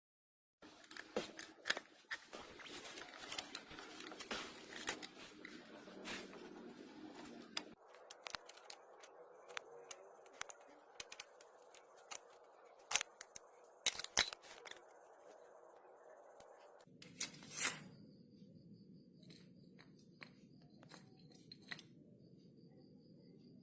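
Scattered clicks, knocks and scraping of scooter CVT parts being handled during disassembly, with a few sharper clicks among them.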